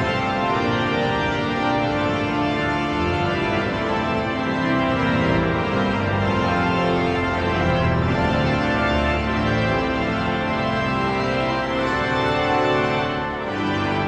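Cathedral pipe organ playing a recessional: full, sustained chords over a deep bass, the chords changing every second or two.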